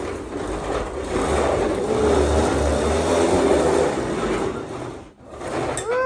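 Battery-powered ride-on toy fire truck driving: its small electric motor and gearbox running with the plastic wheels rumbling over the ground, dropping out briefly about five seconds in.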